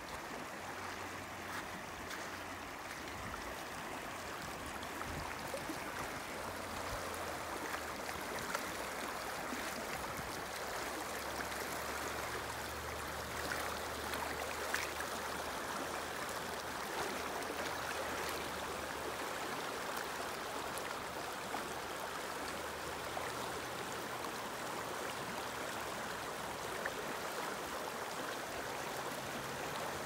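Shallow river water rushing steadily over a cobble bed and small riffles, a continuous even rush with light burbling.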